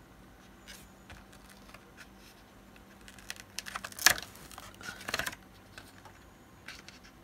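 Backing paper being peeled off an adhesive label and the label pressed onto a plastic battery case: soft crinkling and light ticks, with a sharp crackle about four seconds in and another short run of crackles around five seconds.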